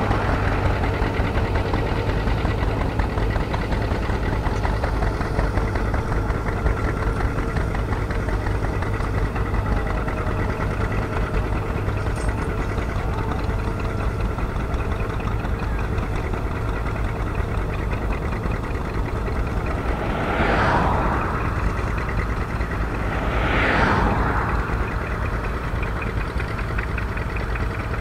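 Antique farm tractor engine running steadily with an even, rapid putter while pulling a two-bottom plow through the soil. Two brief whooshes come near the end.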